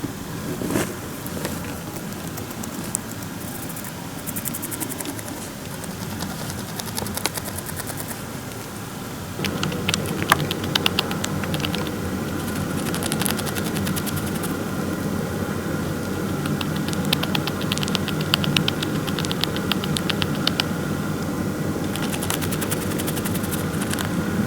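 Syrian hamster grinding its teeth: short bursts of rapid, fine clicking, repeated about six times over a steady background hiss.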